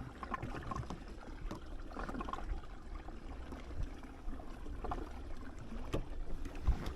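Water lapping and trickling against a small drifting fishing boat, over a low steady rumble, with a few light knocks.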